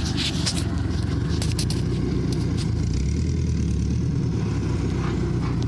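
Subaru flat-four engine running steadily at a low, rumbling idle, with a few sharp clicks and knocks in the first second and a half.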